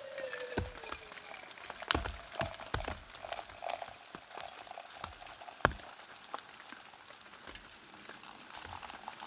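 Freshly boiled water pouring from a Jetboil-style stove pot through the lid's spout into a steel mug, with scattered sharp raindrop taps around it.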